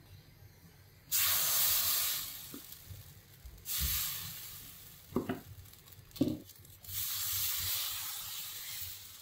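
Palappam batter sizzling as it is ladled into a hot nonstick appam pan. The sizzle starts suddenly about a second in and comes again in a second burst. After a couple of knocks from the pan, it sizzles once more as the pan is tilted and swirled to spread the batter thin around the sides.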